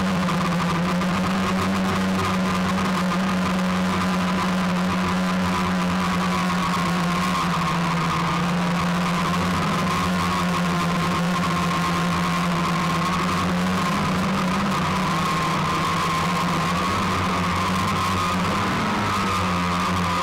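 Multirotor drone's electric motors and propellers whining steadily, picked up by the camera on board. The pitch shifts a little near the end as the drone comes down.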